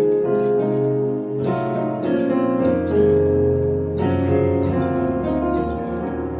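Keyboard playing sustained chords, with a new chord struck about a second and a half in and again about four seconds in.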